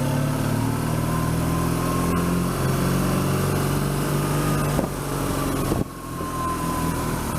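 BMW R1200GS motorcycle's flat-twin engine running at low road speed, with a short drop in level about six seconds in.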